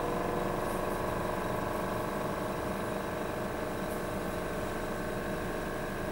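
A steady machine hum made of several held tones over a low rumble, with a few faint light ticks.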